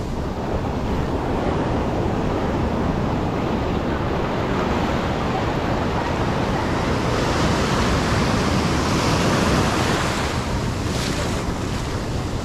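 Ocean surf washing through the shallows, with a continuous rushing hiss over a low rumble and wind on the microphone. The wash grows louder and hissier partway through as a wave surges in.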